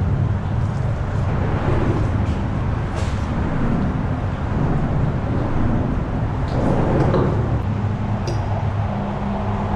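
Steady low rumble of road traffic passing over the concrete bridge overhead.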